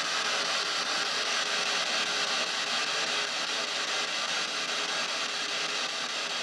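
P-SB7 spirit box radio sweeping through stations, heard as a steady hiss of static through small stereo speakers.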